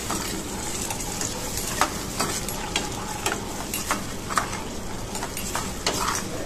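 Tomato-based gravy sizzling in a hot metal frying pan while a steel ladle stirs it, with irregular scrapes and clicks of the ladle against the pan.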